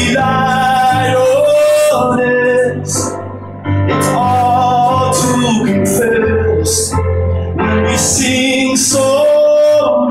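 A male voice singing long, bending held notes over a Yamaha electric keyboard, live, with a low bass line coming and going underneath.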